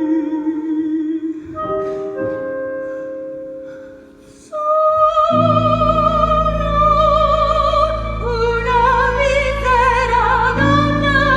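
Theatre orchestra holding soft sustained chords that fade away. About four and a half seconds in, a singer enters on a long high note with wide vibrato. Full, loud orchestral chords come in under it, and the singing goes on over them.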